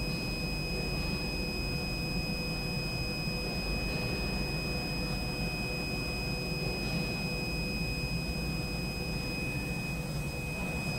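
A steady high-pitched electronic whine over a low hum, with a few faint clicks as the keypad buttons of a forklift load-weighing display are pressed.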